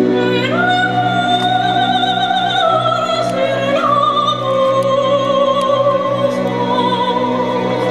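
Operatic singing with orchestral accompaniment. A voice comes in about half a second in and holds long notes with wide vibrato, stepping down in pitch partway through, over steady sustained low chords.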